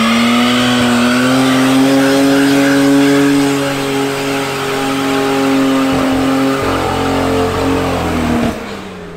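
Car doing a burnout: the engine is held at high, fairly steady revs while the rear tyres spin and smoke, with tyre noise under the engine note. Near the end the revs fall away and the sound drops off.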